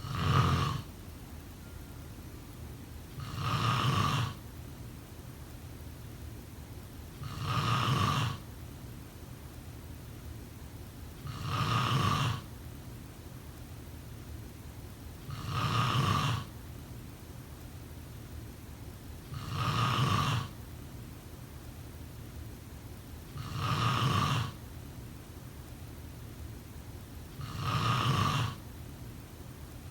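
A sleeping person snoring in a slow, even rhythm: one snore about every four seconds, eight in all. A steady low hum runs underneath.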